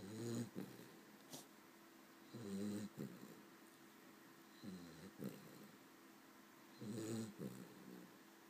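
Cavalier King Charles spaniel snoring in its sleep: four snores at an even pace, about two seconds apart.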